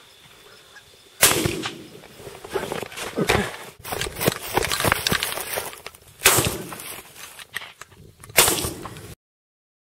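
Shotgun blasts in a field: three loud shots, about a second in, about six seconds in and just past eight seconds, with a busy run of smaller sharp cracks and clatter between them. The sound cuts off suddenly near the end.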